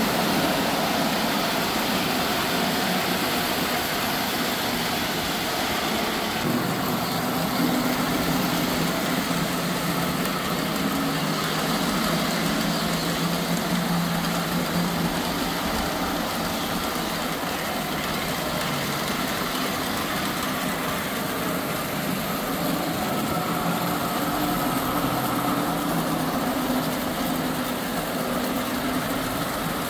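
Postwar Lionel O-gauge electric trains running on three-rail tubular steel track: a steady whir and rumble of motors and metal wheels, the hum shifting slightly in pitch as the trains pass.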